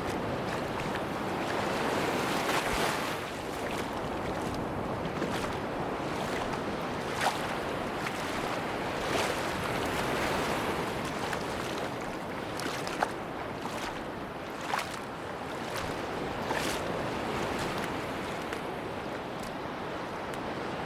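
Sea waves washing onto a beach: a steady surf hiss that swells and eases every few seconds, with a few short, crisp clicks scattered through it.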